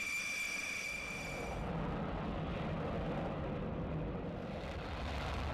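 Dassault Rafale fighter's twin M88 turbofan engines: a high, steady whine as the jet taxis, then, after a cut a second and a half in, the deep, dense engine noise of a Rafale taking off and climbing away.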